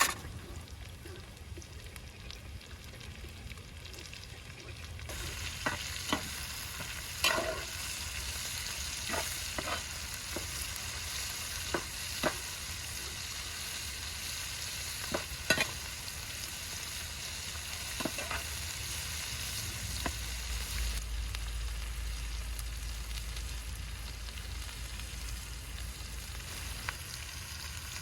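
Food frying in hot oil in a pan, a steady sizzle that grows louder about five seconds in, with a utensil knocking against the pan about a dozen times as the food is stirred.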